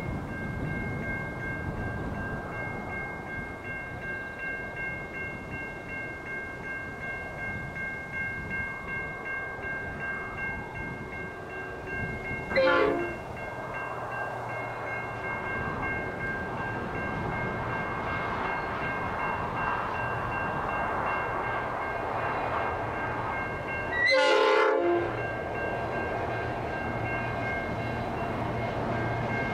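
Pacific National G-class diesel-electric locomotives hauling a container freight train, running steadily as they approach. The locomotive horn sounds briefly about 12 seconds in, and again for about a second near 24 seconds, louder.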